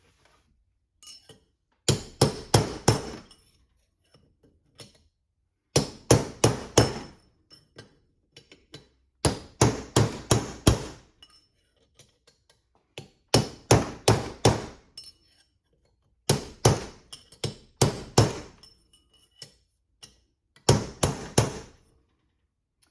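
Hammer blows on a long steel punch driving a bearing race out of a Toyota 8-inch differential: six quick flurries of metallic strikes, several blows each, with short pauses between.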